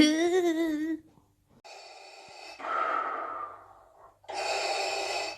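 A wavering, drawn-out voice for about a second, then Darth Vader's respirator breathing sound effect: two slow, hissing breaths through the mask, each a sharper inhale followed by a lower exhale that fades out.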